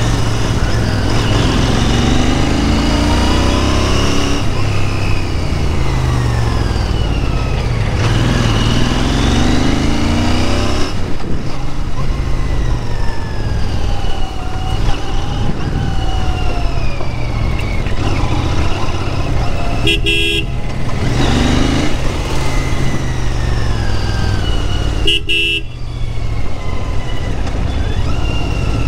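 Royal Enfield Interceptor 650's 648 cc parallel-twin engine running through its stock exhaust on the move, its revs rising and falling. A vehicle horn beeps briefly twice, about 20 and 25 seconds in.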